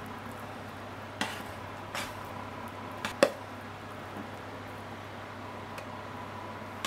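Curry fried rice being scraped out of a frying pan onto a plate with a spatula: a few sharp clacks of the spatula and pan knocking, roughly a second apart, the loudest a double knock about three seconds in, over a steady low hum.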